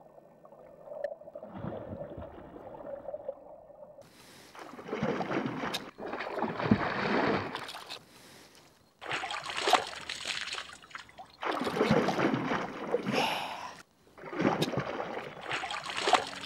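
Water sloshing and splashing around a hooked northern pike at the surface, in several loud stretches that cut off abruptly. The first few seconds are quieter and muffled, heard from underwater.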